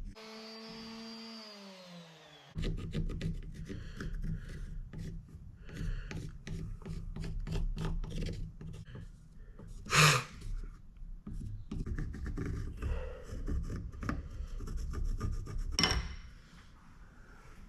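Irregular scraping and rubbing strokes on a wooden slab, with one sharp, louder scrape about ten seconds in. At the start, a whine falls in pitch and dies away.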